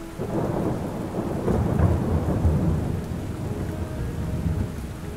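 Rolling thunder rumbling over steady rain: it swells about a second and a half in, then fades away toward the end.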